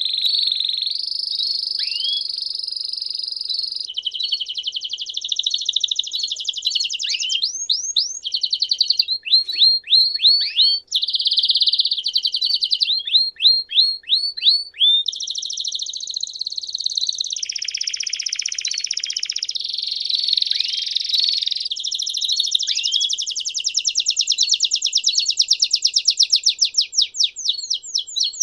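Domestic canary singing a continuous song of rapid high trills and rolls, each held for a few seconds before switching to a new one, broken by quick downward-sweeping notes, with a fast run of repeated notes near the end.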